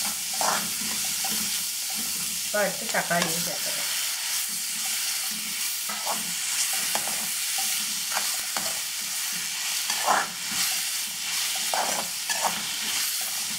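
Onion-tomato masala frying in butter in a pan, a steady sizzle with a spatula stirring and scraping now and then. The tomatoes are being cooked down until soft and mushy.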